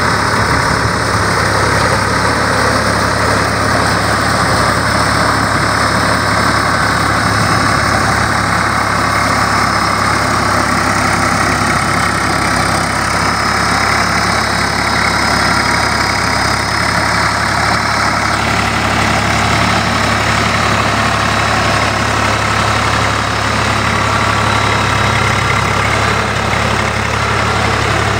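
A Swaraj 855 tractor's diesel engine runs steadily under load as it drives a rotavator through flooded paddy mud. The sound changes abruptly about two-thirds of the way through.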